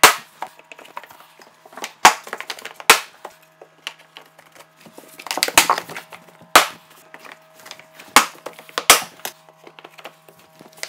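Laminate flooring planks being handled and laid, giving sharp hard clacks and knocks as they are set down and their edges fitted together, about seven, irregularly spaced. A faint steady hum lies underneath.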